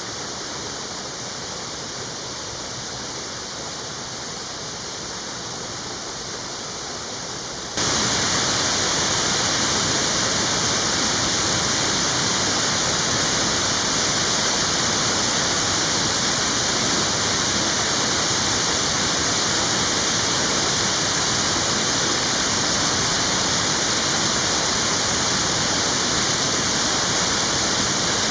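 Usa no Ōtaki waterfall rushing steadily. About eight seconds in, the sound jumps suddenly louder and brighter, then holds steady.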